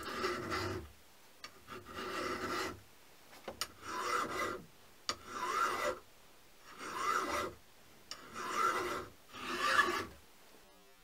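Flat hand file rasping along the edge of a steel part held in a vise, in about seven separate strokes with short pauses between them, then stopping near the end.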